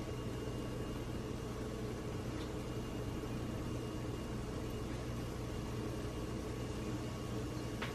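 Pancake batter cooking gently in a little olive oil in a nonstick pan: a faint, steady sizzle over a constant low kitchen hum. There is a single small click near the end.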